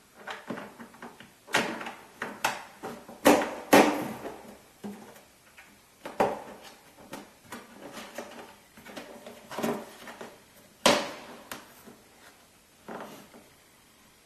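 Hard plastic pet transport carrier being handled: irregular clicks, knocks and rattles, with the loudest knocks about one and a half, three and a half and eleven seconds in.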